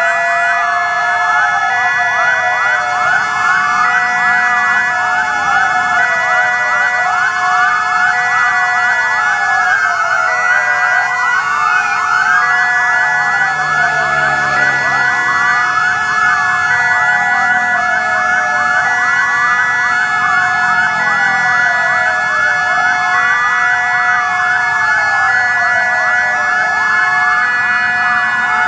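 Several fire department sirens sounding together without a break. A rapid yelp, a two-tone hi-lo and a wail that falls about every two seconds overlap over steady held tones. One siren winds up to a held tone about twelve seconds in.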